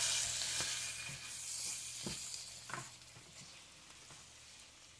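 Seafood rice frying and sizzling in a hot pot while it is stirred, with a few knocks of the stirring utensil against the pot. The sizzle fades over the second half.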